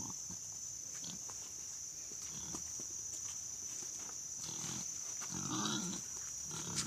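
Boar on a leash grunting several times as it trots along, the loudest grunt about two-thirds of the way through, over a steady high-pitched insect buzz.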